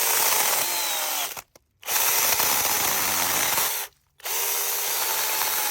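Electric mini chainsaw motor running with a steady whine, cutting out abruptly twice for a moment and starting again.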